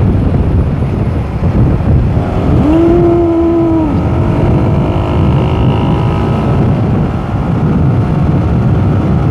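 Motorcycle running along a road with wind rushing over the phone microphone, a dense steady rumble. About two and a half seconds in, a steady pitched tone sounds for about a second and a half and then cuts off.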